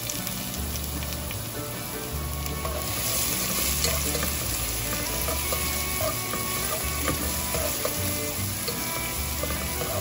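Chopped garlic and onion sizzling in hot olive oil in a nonstick pan; the sizzle grows louder about three seconds in. A slotted spatula stirs and scrapes through it with small clicks.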